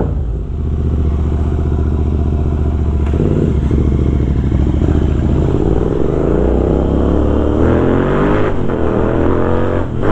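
Royal Enfield Continental GT 650's 648 cc parallel-twin running loud through a Red Rooster Stellar exhaust with its dB killer removed. It runs steadily for about three seconds, then its pitch climbs slowly for several seconds as it revs, falls away, and climbs again near the end.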